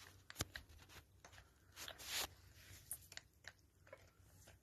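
Faint, irregular chewing and smacking clicks of a kitten eating mashed food from a bowl, with a brief rustle about two seconds in.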